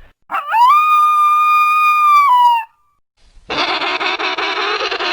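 Tawaki (Fiordland crested penguin) calling: one long, strident call that rises, holds level for about two seconds and drops away at the end, then after a short pause a harsh, rapidly pulsing call.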